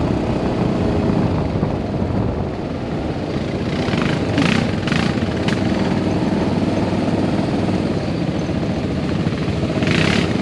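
ATV engine running steadily while riding along, a dense continuous rumble. A few short bursts of higher-pitched noise cut in about halfway through and again near the end.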